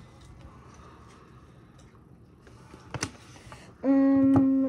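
Trading cards being handled and flipped at a table: faint scattered clicks and one sharper click about three seconds in. Near the end a voice holds one steady note for most of a second.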